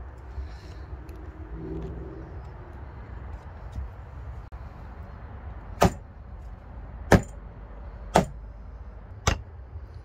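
Hammer striking a metal eyelet-setting punch four times, about a second apart, clinching brass eyelets into the holes of wooden beehive frame end bars.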